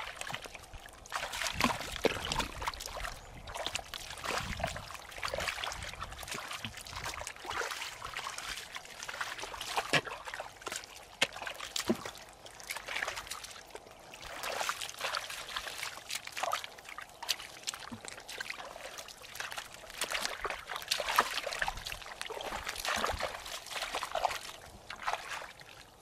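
Hands digging and groping through waterlogged mud and shallow puddles: irregular wet squelches, sucking sounds and splashes with water trickling.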